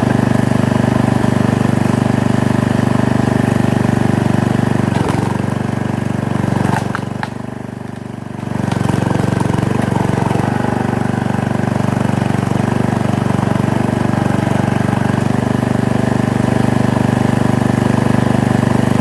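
An engine running steadily. Its level sinks for about two seconds near the middle, then comes back.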